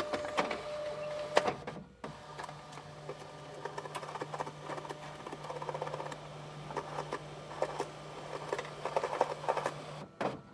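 Fax machine receiving and printing a page. It starts with clicks and a brief steady tone, then after a short pause the feed motor hums steadily under a busy mechanical rattle for about eight seconds. It stops suddenly near the end with a final click.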